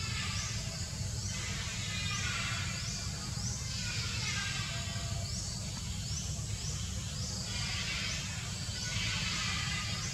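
Forest insects, buzzing and hissing in waves that swell and fade every couple of seconds, over a steady low rumble.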